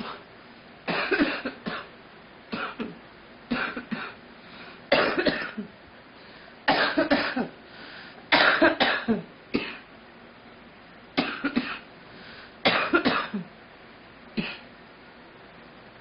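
A girl coughing repeatedly in short fits of one to three coughs, with pauses of about a second between fits.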